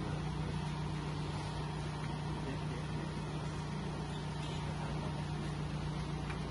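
A van's engine idling steadily: a low, even hum that holds the same level throughout.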